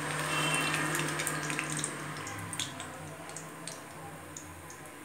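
Moong dal pakodas deep-frying in hot oil in a kadai: a steady hiss and sizzle with many small scattered pops, a little louder in the first two seconds.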